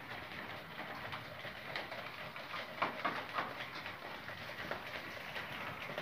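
Many caged quail chirping: a dense run of short overlapping calls, loudest about three seconds in.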